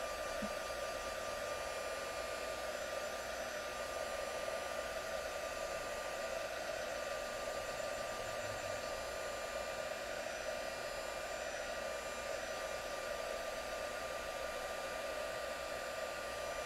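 Stampin' Up! heat tool (a crafter's embossing heat gun) blowing steadily, drying wet ink on watercolor paper. Its fan hum is even throughout, with a thin steady whine over it.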